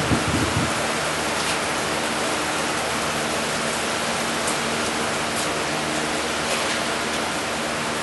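Steady hiss of heavy rain, with a faint steady hum underneath. A few dull low knocks sound in the first half second.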